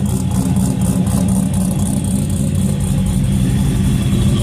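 Turbocharged car's engine running at a steady, loud idle through its exhaust, with no revving or pops.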